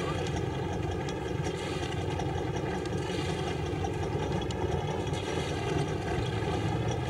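A boat's engine idling steadily and evenly.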